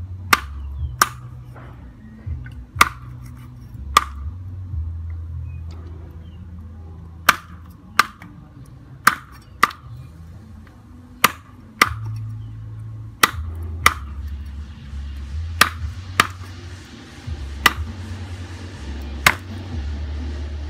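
Cleaver chopping a snake into pieces on a wooden chopping board: sharp single chops, often in pairs, about one a second.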